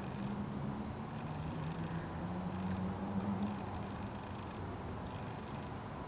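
Steady high-pitched insect drone, with a louder, wavering low hum underneath that swells in the middle.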